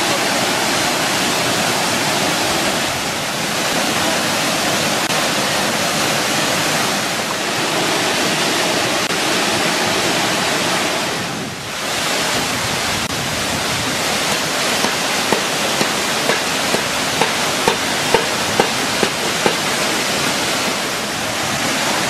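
Waterfall cascades falling into a pool: a steady rushing hiss of falling water. Past the middle, about a dozen short pips come at roughly two a second over the rush.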